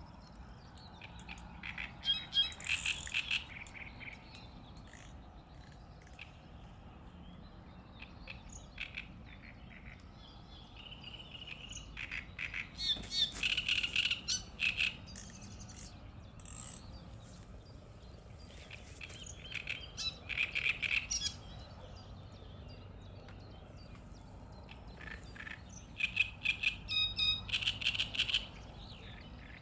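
A songbird singing in repeated phrases of quick chattering notes, each about two seconds long and coming every six or seven seconds, over a faint steady outdoor background.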